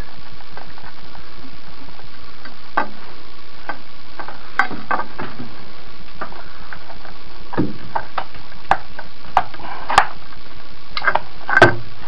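Hands feeding navigation-light wires through a small hole in a boat console panel: scattered light clicks, taps and rustles at irregular intervals over a steady background hiss.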